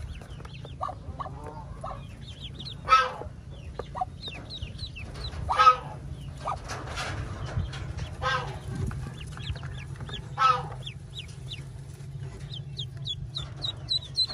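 An adult fowl gives short, loud clucking calls about every two and a half seconds, over the high peeping of ducklings. The peeps turn rapid and even near the end.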